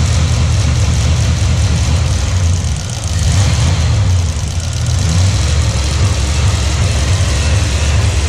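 1996 Dodge Ram 1500's 5.2-litre Magnum V8 running rough at about 1600 RPM once warm, with its fuel injectors clicking. The engine note sags briefly twice near the middle. This is the warm-engine rough running and misfiring that comes with the truck's P1391 camshaft/crankshaft position signal code.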